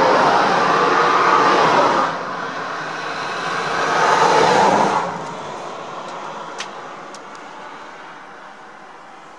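Road traffic passing: two vehicles, the noise of each swelling and then falling away quickly, the first about two seconds in and the second about five seconds in, then a low background hum; a small click near the middle.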